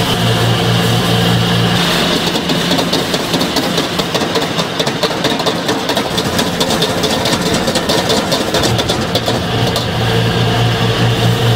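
Noodles stir-frying in a carbon-steel wok over a gas burner: steady burner roar and sizzling, with the metal spatula scraping and clattering against the wok through the middle. A steady low hum sits under it at the start, drops away about two seconds in and returns near the end.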